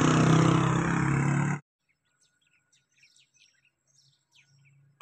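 A loud, steady, engine-like drone with a low hum stops abruptly about a second and a half in. After it come faint, scattered bird chirps over near quiet.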